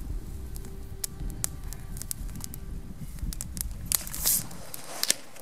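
Campfire of dry twigs and branches crackling, with scattered sharp pops. About four seconds in comes a short, loud hiss.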